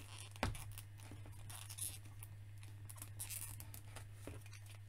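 Hard plastic action-figure parts being handled as a weapon accessory is fitted into the figure's hand: a sharp click about half a second in, then light scratches and small taps of plastic on plastic.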